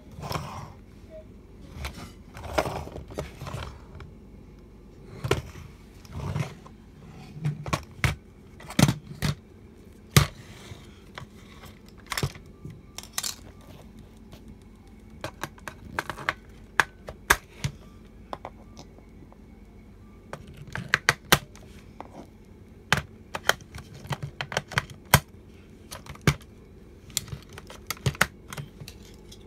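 Irregular plastic clicks and knocks from a toy police car being handled and turned over, tapping against a wooden floor.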